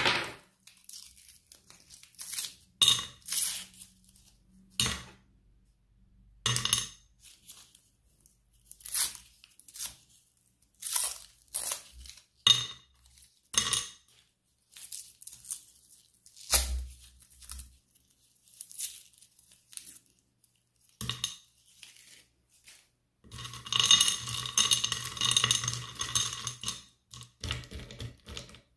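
Sweet wrappers being torn and crinkled open in short sharp crackles every second or two, with small chewy sweets set down in a ceramic dish. Near the end, a denser clatter of chocolate buttons being pushed around in a ceramic platter section.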